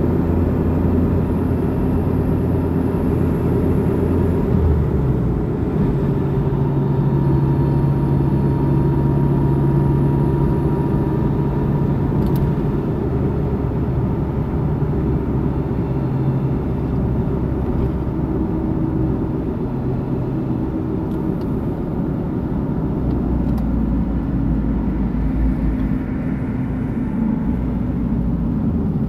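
Cabin noise of a car driving on a motorway: a steady low rumble of tyres and engine, with a low engine hum that shifts in pitch now and then.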